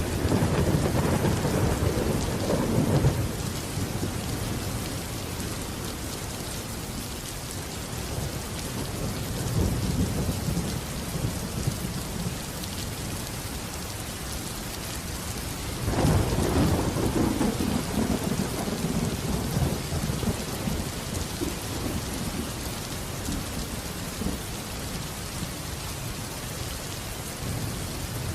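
Steady rain falling, with rolls of thunder rumbling over it: one at the start, a lighter one about ten seconds in, and a strong roll about sixteen seconds in that dies away slowly.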